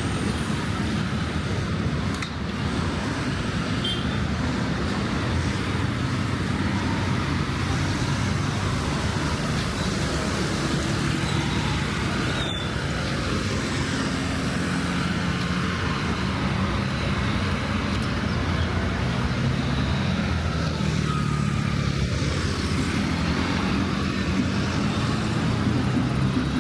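Steady road traffic: cars and other motor vehicles passing, a continuous hum of engines and tyres that grows somewhat stronger in the second half.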